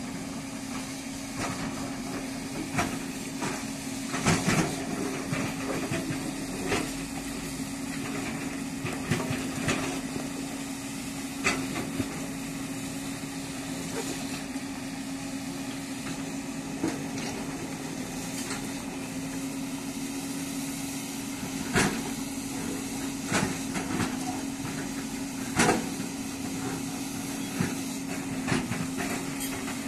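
A 20-ton-class tracked excavator's diesel engine running at a steady pitch. Irregular sharp knocks and clanks sound over it, with several louder ones scattered through.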